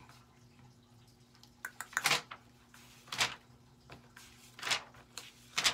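A few short, soft taps or clicks, spaced about a second apart, over a faint steady hum.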